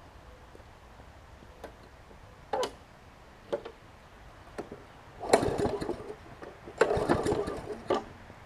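Briggs & Stratton Quantum push-mower engine being pull-started: a few light knocks, then two pulls of the recoil starter cord of about a second each, the engine turning over without starting.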